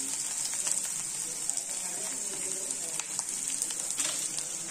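Onion, green chilli and potato mixture sizzling in hot oil in a kadai: a steady hiss with scattered faint crackles.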